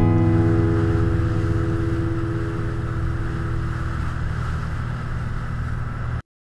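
Motorboat under way: a steady engine drone with the rush of wind and water, cutting off abruptly near the end.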